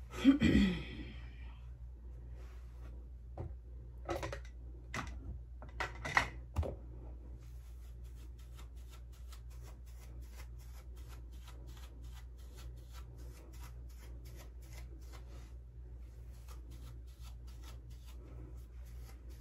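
A hairbrush stroking through short hair, a quick steady run of brushing strokes, several a second. Before it comes a short loud noise at the very start and a few knocks.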